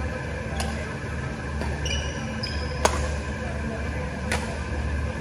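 Badminton rackets striking a shuttlecock in a rally: sharp pops about every one and a half to two seconds, the loudest near the middle. Just before that loudest hit come short squeaks of court shoes on the floor. A steady low hum runs underneath.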